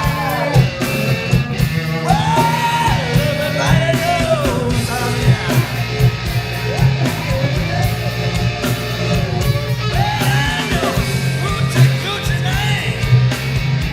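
A singer performing a rock song live over guitar and a steady, driving beat, with long held and sliding sung notes.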